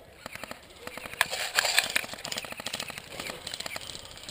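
Airsoft electric rifle firing a fast string of shots, a rapid rattle of sharp clicks lasting about three seconds.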